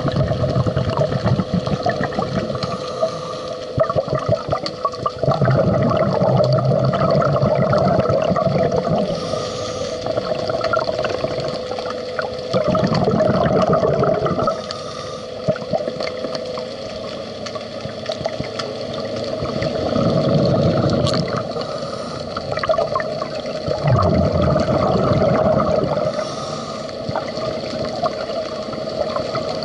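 Scuba diver breathing underwater through a regulator, each exhalation a gurgling rush of bubbles every five to seven seconds. A faint steady hum runs beneath and stops about seventeen seconds in.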